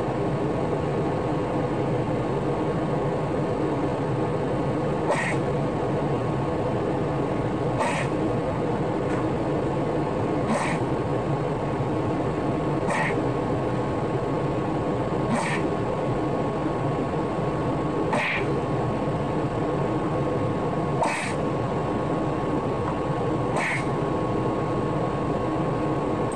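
Steady, loud electronic drone of static-like buzzing, with a short sharp click about every two and a half seconds, played through computer speakers behind a censor card.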